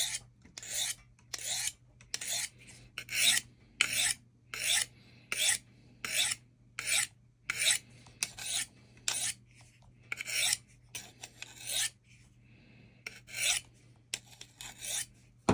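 Knife blade of S90V steel being drawn stroke after stroke across a Sharpal diamond sharpening rod, used like a honing steel: a dry metal-on-diamond scrape with each pass, about two strokes a second, with a short break about three-quarters of the way through. The blade had been deliberately dulled and the edge is coming back.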